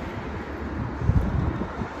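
Wind buffeting the microphone in irregular low gusts, strongest a little after a second in, over the noise of car traffic on the road.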